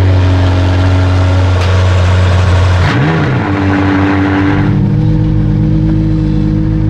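McLaren twin-turbo V8 supercar engines: one idles loud and steady after a cold start, and a second fires up with a brief rev flare about three seconds in. From about five seconds a steadier, smoother engine note runs on.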